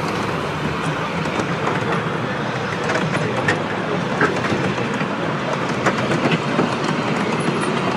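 Miniature railway passenger carriages rolling past on the track: a steady rolling rumble with many short, irregular clicks from the wheels on the rails.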